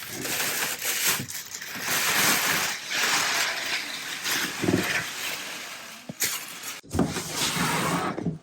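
Crackling and rustling of packaging as a new appliance is unwrapped and pulled from its box, with a short break just before the end.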